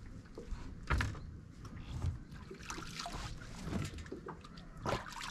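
Scattered knocks, clicks and rustling of things being handled, the sharpest about a second in and near the end.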